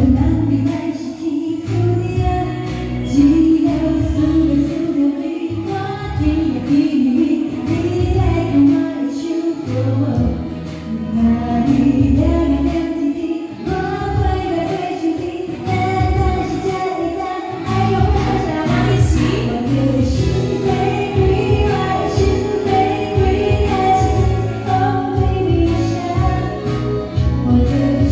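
A woman singing live into a handheld microphone over a backing track with a steady beat, amplified through a stage PA loudspeaker.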